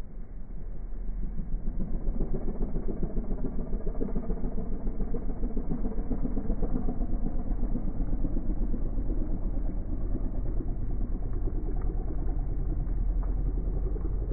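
McLaren 570S's twin-turbo V8 running at low revs as the car creeps away at walking pace, growing louder over the first couple of seconds and then holding steady.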